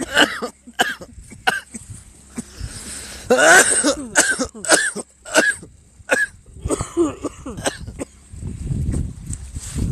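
A person making a string of short, throaty, cough-like vocal sounds, one every half second or so, with a longer, louder run about three and a half seconds in.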